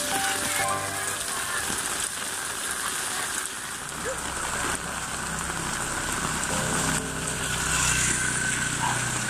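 Steady rain falling, with water running in a concrete drainage channel. A low steady hum joins about halfway through.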